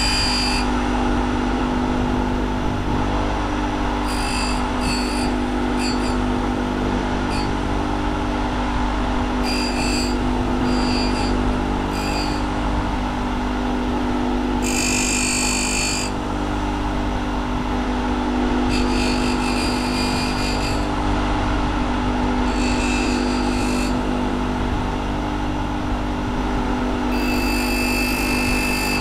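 A small power tool, such as a rotary tool, running steadily while a hair clipper's cam follower is reshaped, with brief higher-pitched grinding bursts every few seconds as it bites into the part.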